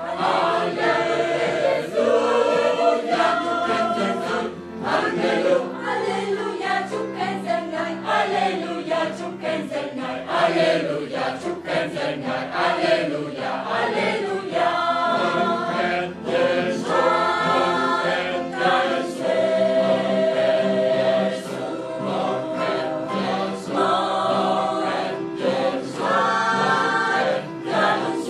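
Mixed choir of men and women singing together, several voice parts sounding at once without a break.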